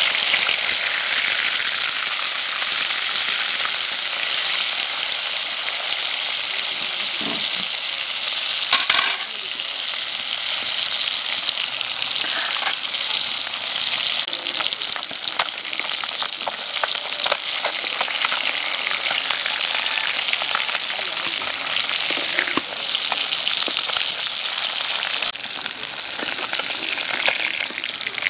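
Whole climbing perch frying in hot oil in an iron karahi: a steady loud sizzle with constant crackling pops, and a brief louder burst of spitting about nine seconds in.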